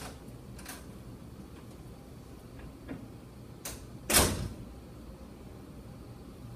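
A room door being opened with a few light clicks, then about four seconds in it shuts with one loud thump.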